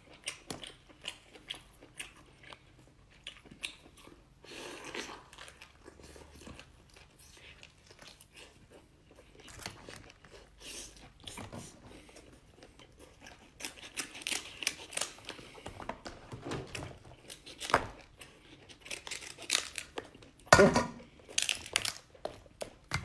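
Close-up chewing and smacking of a mouthful of king crab meat, with crunching and crackling as crab shell is broken apart by hand. A louder burst comes a couple of seconds before the end.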